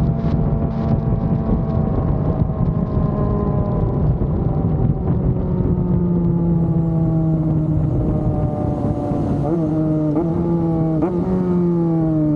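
Yamaha FZ6 Fazer 600's inline-four motorcycle engine running on the road, its revs falling slowly and steadily, with two quick throttle blips about two-thirds of the way through and a steeper drop in revs at the end.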